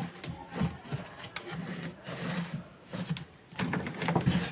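Hands handling the washing machine motor's wiring: scattered clicks and rubbing of wires and plastic connectors.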